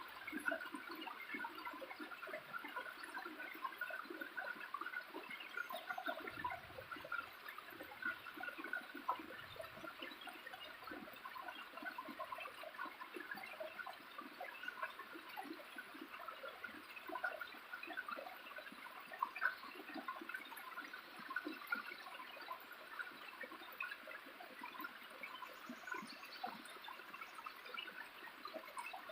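Small waterfall splashing and trickling steadily, a dense patter of many small splashes.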